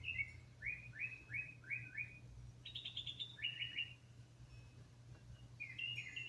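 Birds chirping in quick runs of short, falling notes, several a second, with a pause of about a second and a half near the two-thirds mark, over a faint steady low hum.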